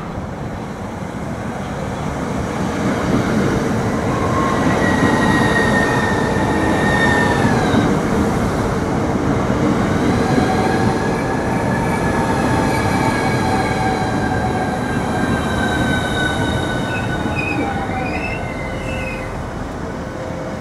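Class 395 Javelin high-speed electric multiple unit arriving at a platform and braking to a stop. Wheels rumble on the rails under an electric whine that falls in pitch as it slows, with a brief squeal near the end as it halts.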